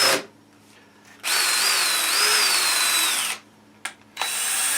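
Power drill driving construction screws into a wooden 4x4 post, run in short spurts. The motor's whine wavers in pitch as the screw bites. A brief run stops at the start, a longer run of about two seconds follows, and a new run begins near the end.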